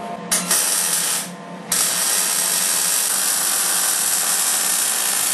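Eastwood MIG 175 welder arc crackling as a bead is laid on 1x1-inch square tubing with C25 shielding gas. There is a short burst of under a second, a brief pause, then a steady run of about four seconds.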